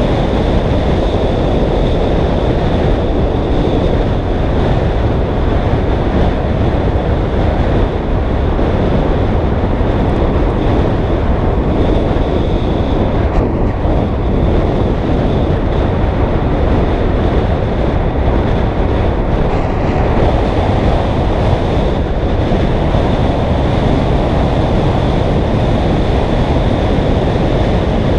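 Loud, steady wind rushing over the microphone on a fast bicycle descent, with a thin, steady high-pitched whine running through it.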